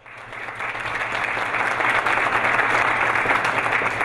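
Audience applauding steadily, fading in over the first second or so.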